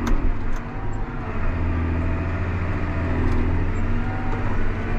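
John Deere 8300 tractor's diesel engine running steadily, a low drone heard from inside the cab, with a sharp click right at the start.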